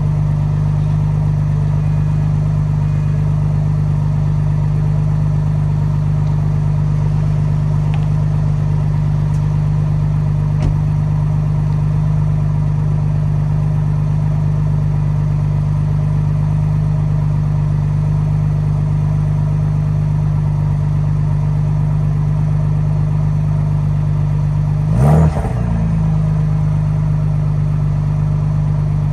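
Ford Bronco Raptor's twin-turbo V6 idling steadily through its exhaust, with one short rev that rises and drops back near the end.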